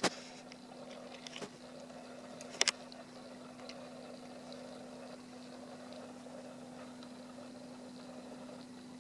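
Domestic cat purring steadily while being stroked on the head. Two short sharp handling clicks are heard, one at the very start and one about two and a half seconds in.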